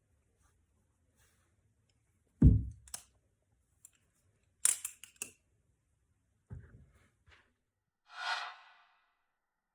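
Butterfly knife handles clacking and knocking as the knife is flipped through a zen rollover: a heavy knock about two and a half seconds in, three sharp clicks a little after, and another knock about two seconds later. A short rush of noise follows near the end.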